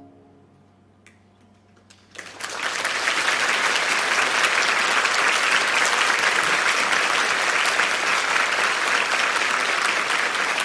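The last piano chord fades out; after a short hush and a couple of lone claps, a large theatre audience breaks into steady applause about two seconds in.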